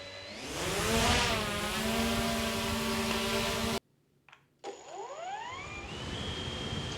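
DJI drone motors and propellers spinning up for takeoff: a rising whine that settles into a steady hover tone. It cuts off abruptly about four seconds in, and a second drone then spins up the same way, its pitch rising and levelling out.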